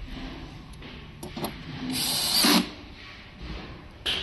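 Electric screwdriver driving a screw home in one run of about half a second, around two seconds in, with a few light clicks from handling parts before it.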